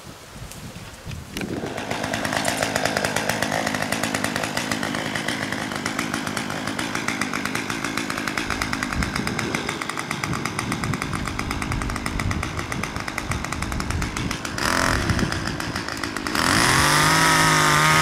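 Chainsaw running steadily, starting about a second in. Near the end, louder music with wavering pitches cuts in over it.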